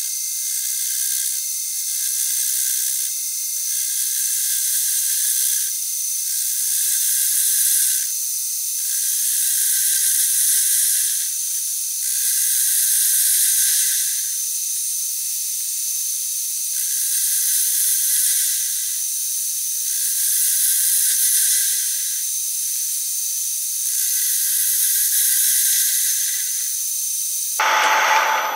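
Metal lathe facing the end of a cast aluminium bar, the kerosene-wetted cutter shearing off chips with a steady high hiss and whine. The sound swells and eases every few seconds as the cut goes on.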